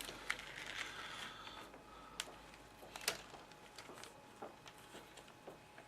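Plastic laptop screen bezel being handled and pressed back into place, with a few sharp clicks as its clips snap in.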